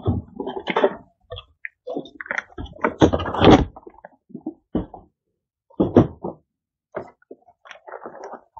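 Cardboard shipping box and packaging being handled: irregular scrapes, rustles and knocks as the box is lifted off the unit and set aside, loudest about three seconds in, then the plastic bag around the UPS rustling as it is gripped.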